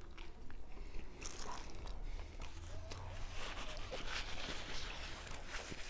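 Close-up chewing and biting of a chilaquiles torta, a bread roll filled with tortilla chips in salsa verde, with scattered wet crunches and mouth clicks.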